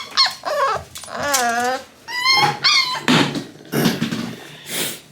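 Six-week-old American Bully puppy whining and yelping in several high, wavering cries, followed by a few short noisy bursts in the second half.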